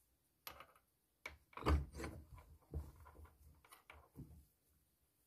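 Steel hammer head being set into the jaws of a bench vise and clamped: a run of irregular metal knocks and scrapes, loudest nearly two seconds in, that stop after about four and a half seconds.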